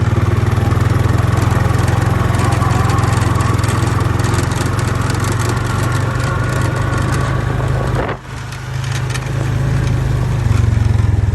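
A small vehicle's engine running steadily with a low hum. It drops off sharply about eight seconds in and picks back up about a second later.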